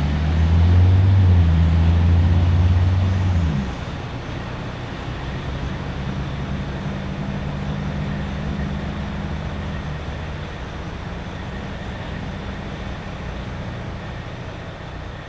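1997 Tibotrac pump truck's engine pulling away: a loud low drone for about three and a half seconds that drops off suddenly, then a quieter engine and road noise that slowly fade as the truck drives off.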